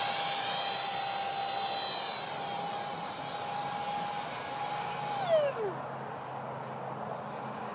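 Freewing Su-35 model jet's electric ducted fans whining steadily at a high pitch. About five seconds in, the whine slides sharply down in pitch and fades as the fans spool down.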